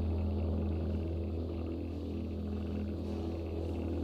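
A steady low hum, an unchanging drone with fainter steady tones above it.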